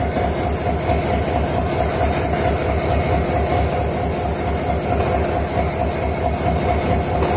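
Diesel locomotive engine running: a steady, loud drone with a fast low throb and a steady whine over it.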